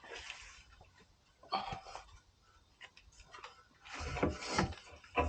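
Scattered knocks and clinks of a CV axle being worked into place by hand, with a busier cluster about four seconds in and a sharp knock near the end.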